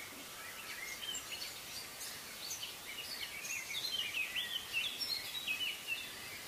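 Small birds chirping: many short, high calls and quick sweeps, growing busier through the middle, over a faint outdoor hiss.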